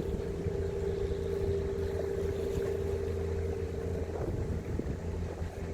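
A boat engine hums steadily with an even low drone, with some wind noise on the microphone.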